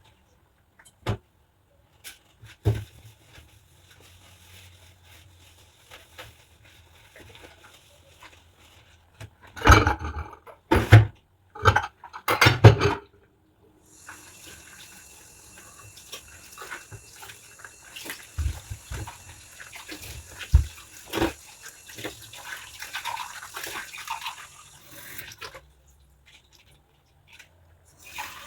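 Dishwashing at a sink in rubber gloves: scattered light knocks and clinks of dishes, with a cluster of four loud handling bursts about ten seconds in. From about halfway the tap runs steadily for around eleven seconds, then shuts off.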